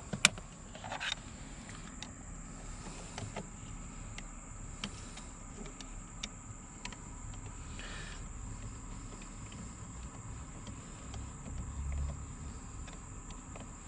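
Steady high-pitched insect chirring, with scattered light clicks and knocks from the air intake boot and mass airflow sensor being handled and fitted.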